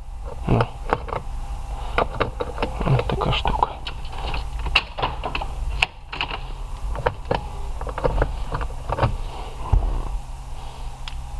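Irregular clicks and knocks of hands handling plastic dashboard trim and small parts in a car's cabin, over a steady low hum. The clicks stop near the end.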